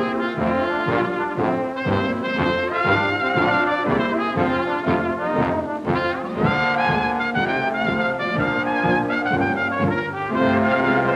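Orchestral cartoon score with prominent brass, trumpets and trombones, playing a lively passage of short, rhythmic notes.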